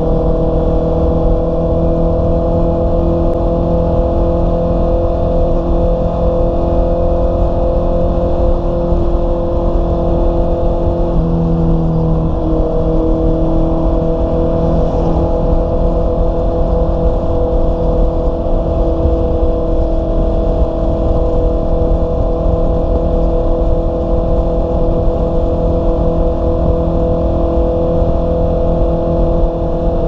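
Honda CB650R's inline-four engine running steadily at highway cruising speed, with wind rushing over the microphone. Its pitch dips slightly about eleven seconds in and comes back a second or so later.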